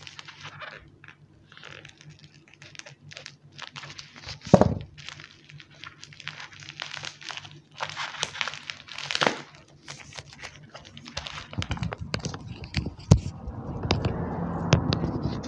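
Crinkling and crackling of a parcel wrapped in packing tape and bubble wrap as gloved hands turn and squeeze it, with a couple of sharper knocks. The rustle grows denser near the end.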